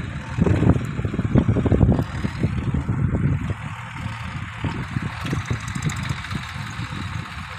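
Rumble of traffic on a highway, louder in the first two seconds and then a little quieter and steadier.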